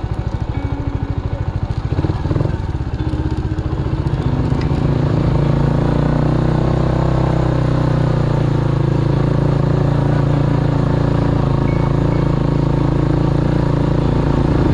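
Motorcycle engine running as the bike rides along a dirt track, with a low pulsing exhaust note. It gets louder about five seconds in and then holds a steady note.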